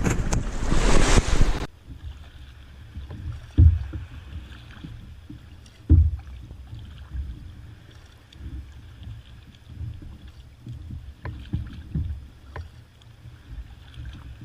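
Sea kayak rocking on choppy water, with low thumps of water slapping against the hull (two stronger ones, about 3.5 and 6 seconds in) and faint light knocks and ticks. It opens with loud wind and surf noise that cuts off abruptly after about a second and a half.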